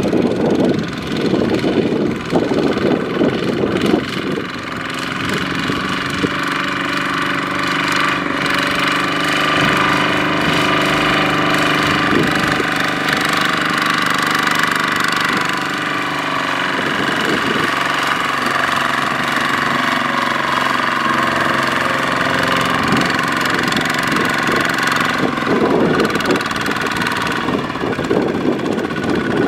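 Kubota RT140 single-cylinder diesel engine of a two-wheel power tiller running under load as it drags a loaded trailer through sticky mud. The engine note holds steady through the middle, with rougher, noisier stretches near the start and near the end.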